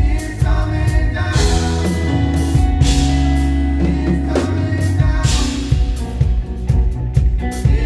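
Live praise band playing: drum kit keeping a steady beat with cymbal crashes, over held low bass notes, with some singing.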